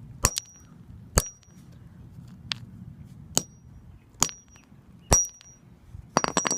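Hammer striking a rock to break it open, about once a second, each blow a sharp crack with a short high metallic ring. A quick flurry of several blows comes near the end.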